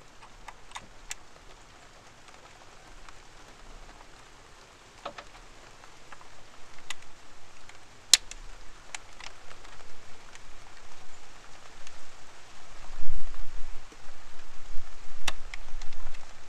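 Sparse small clicks and taps of a hand working a plastic EVAP purge valve and its hose fitting, over a faint hiss of light rain. A low rumbling grows louder from about six seconds in and is strongest around thirteen seconds.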